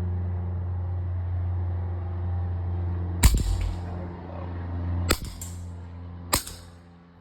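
Three sharp shots from a .25 caliber PCP air pistol, each about a second to two apart, with a fainter crack a fraction of a second after the second shot. A steady low hum runs underneath.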